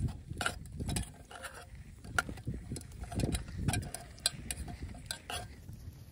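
Metal spoon stirring a stew in a stainless steel camp pot, clinking and scraping against the sides of the pot in irregular strokes. The clinks stop about five and a half seconds in.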